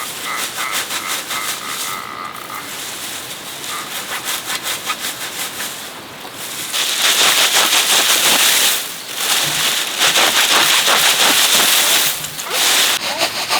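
Hand sawing: a saw cutting with quick rhythmic strokes. It gets much louder about seven seconds in, with two short breaks.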